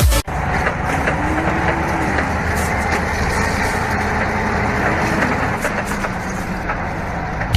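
Engine of a heavy machine running steadily, its pitch rising and falling a little twice.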